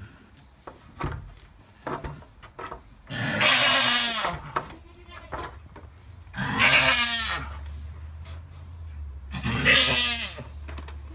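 Alpine doe in labour bleating three times, long strained cries that fall in pitch at the end, as she pushes to deliver a kid still in its birth sac.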